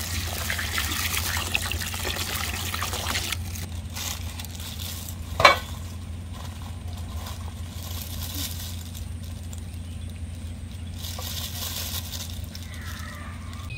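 Cold water being poured into a container to soak dried mushrooms. It runs for about three seconds and then stops. About five seconds in there is a single sharp knock, and a steady low hum runs underneath.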